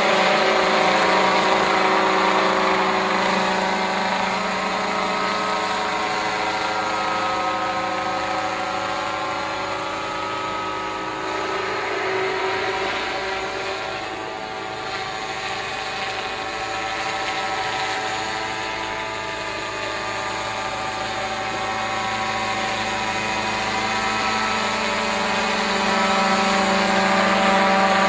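Remote-controlled helicopter's engine and rotor running steadily in flight, with a steady buzzing pitch. It fades as the helicopter moves away around the middle, then grows louder again near the end as it comes back close.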